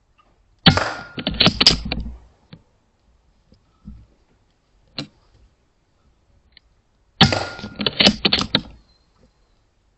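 Two shots from a .22 air rifle, about six and a half seconds apart. Each is a sharp crack followed by about a second and a half of clicks and rattles.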